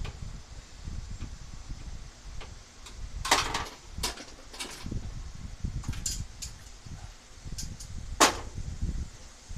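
Irregular sharp clicks and clacks of hand tools and small hardware being handled during grille fitting. A quick rattling cluster comes about three seconds in and the loudest single clack near the end, over a low rumble.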